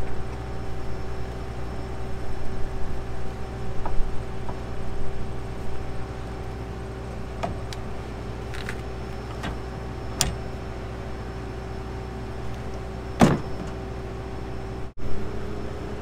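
Tractor engine idling steadily, with a few sharp metallic clicks and clanks as hydraulic hoses and couplers are handled at the auger cart hitch; the loudest clank comes about 13 seconds in.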